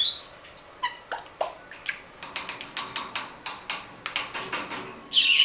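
African grey parrot making a quick series of short clicking sounds, about three or four a second, then a loud high squawk near the end.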